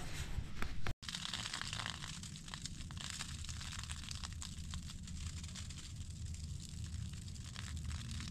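Faint crinkling and rustling made up of many small ticks over a low steady rumble; the sound cuts out briefly about a second in.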